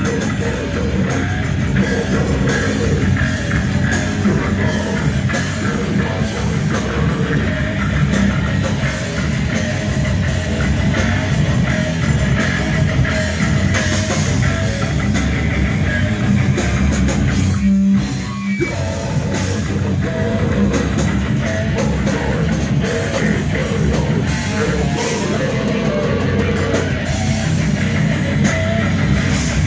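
Heavy metal band playing live: distorted electric guitars over a drum kit. The playing drops out for a moment about two-thirds of the way through, then comes straight back in.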